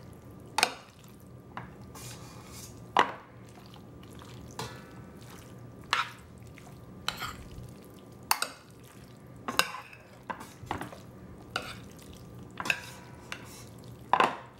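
Metal spoon stirring sauce-coated pasta in a glass baking dish, clinking sharply against the glass at irregular intervals, a dozen or so times, with soft stirring noise in between.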